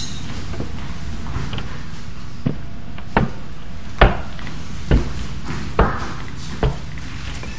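Objects being set down one after another on a cloth-covered table: six dull knocks, about one every second, the loudest near the middle, over a steady low hum.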